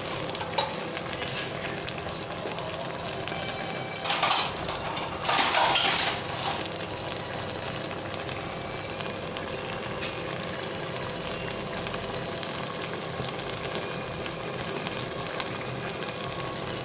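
Mushrooms and chicken small intestine sizzling steadily in a steaming stainless-steel pot as the cooking liquid cooks off, with two louder surges of noise about four and five to six seconds in.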